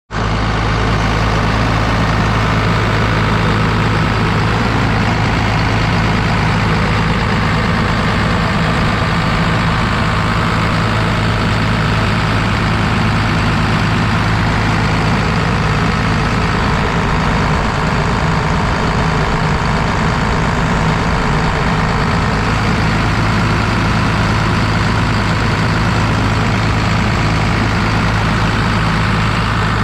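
Diesel engine of a 2004 Vögele 2116T asphalt paver running steadily at a constant speed, with a low, even hum.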